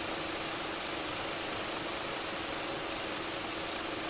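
White noise from an ambient-sound app on a computer: a steady, even static-like hiss.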